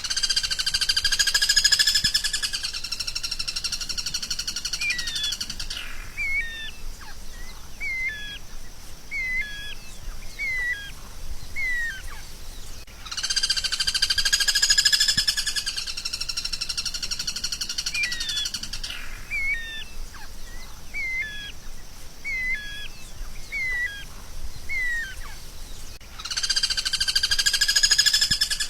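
Recorded songbird song played as masteran (training song for cage birds): a loud buzzy, rattling trill lasting a couple of seconds, then a string of short separate chirping notes. The whole phrase repeats about every 13 seconds, like a loop.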